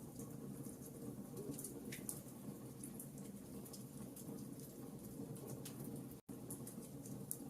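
Campfire burning, with a steady low rush under irregular small crackles and pops of burning wood. The sound cuts out for an instant a little after six seconds in.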